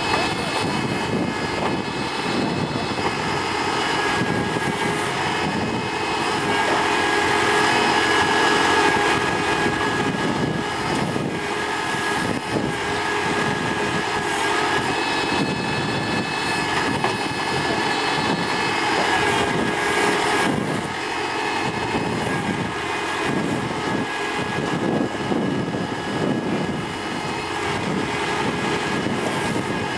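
A TAFE tractor's diesel engine running steadily while it drives a tractor-mounted backhoe digging soil and loading it into a trailer.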